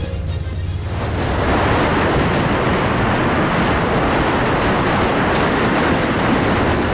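Car driving at speed: a loud, steady rushing of wind and road noise that starts about a second in and stops near the end.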